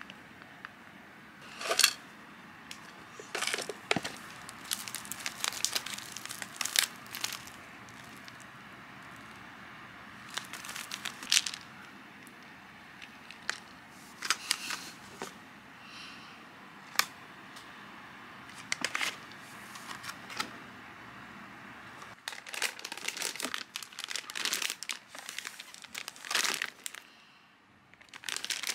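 Gift items being handled and set down on a table by hand: plastic packaging crinkling and rustling, with sharp clicks and taps of plastic bottles and containers being put down. A longer stretch of dense plastic-bag rustling comes near the end.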